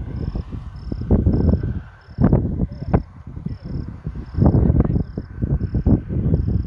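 Insect chirping: a short, high note repeating evenly about one and a half times a second. Under it runs loud, irregular low rumbling that surges and fades.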